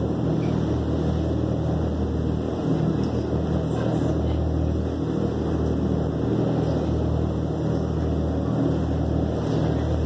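A boat's engine running steadily while under way, a low drone, with water rushing along the hull.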